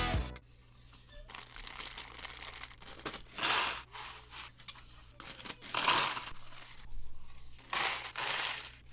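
Small plastic building-brick pieces rattling and clicking against each other, in several swells of clatter with scattered clicks between.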